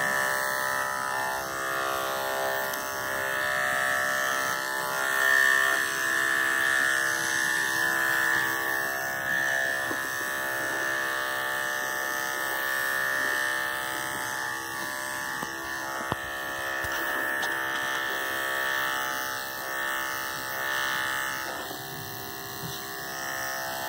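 Andis electric dog clippers with a number 10 blade running with a steady buzzing hum while clipping a miniature schnauzer's back. The level rises and falls slightly as the clippers work.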